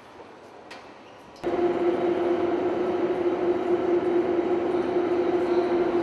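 Electric hoist of an overhead crane running, a steady machine hum with one strong pitch that starts abruptly about a second and a half in.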